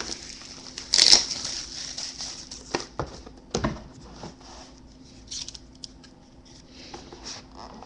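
A cardboard trading-card box being handled and opened: a short crinkly rustle about a second in, then a few light taps and knocks, with softer handling noises after.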